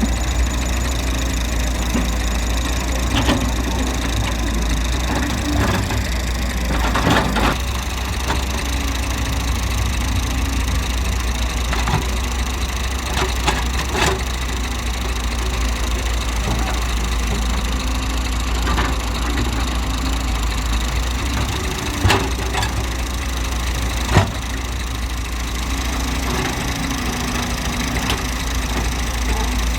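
Excavator's diesel engine running steadily with a low rumble, with a few sharp knocks and clanks from the working machine; the loudest come about two-thirds of the way through.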